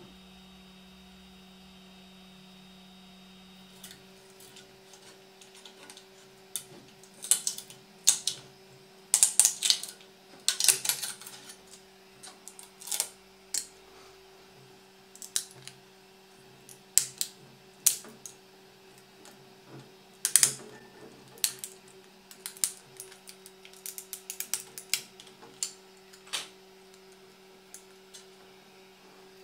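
Sharp, irregular plastic clicks and scrapes as a freshly 3D-printed polycarbonate gyroscopic keyring is pulled off its printed raft and its nested rings are handled, over a steady low hum. The clicks start a few seconds in and come thickest through the middle.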